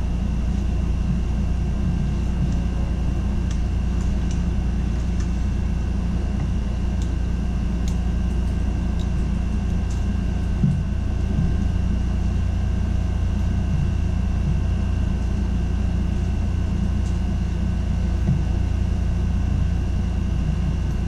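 Steady low hum and rumble of room noise with a faint even hiss and two faint high steady tones, such as an air conditioner makes, and a few faint clicks from the trumpet being handled while its bell is rubbed with a microfiber cloth.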